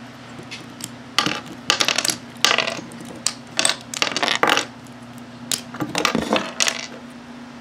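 Plastic Lego pieces clicking and clattering in irregular bursts as they are handled and pressed together.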